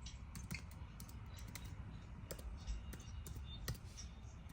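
Faint, irregular typing clicks, several a second, over a low background hiss.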